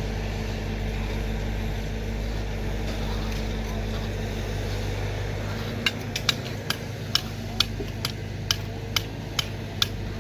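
A steady low machine hum. About six seconds in it is joined by sharp, regular clicks, roughly two a second.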